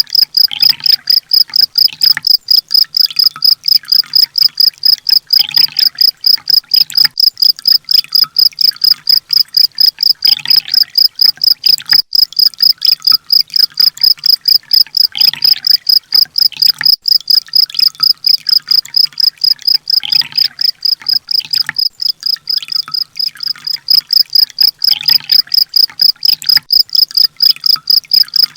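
Looped songbird-training (masteran) recording: a high-pitched chirp pulsing steadily about five times a second, with a fainter call that comes back about every five seconds.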